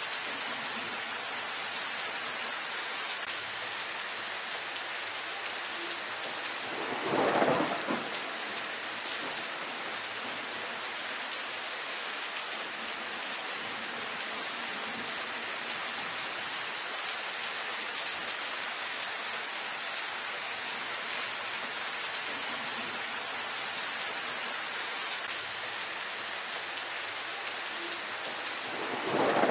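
Steady rain falling on leaves, with two short claps of thunder: one about seven seconds in and another near the end.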